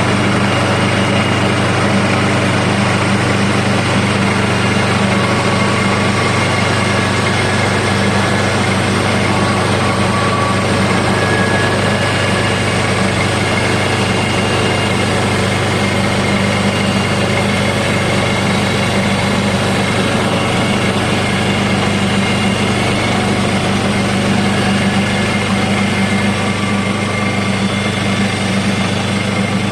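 Small petrol engine of a portable bandsaw timber mill running steadily, started on choke.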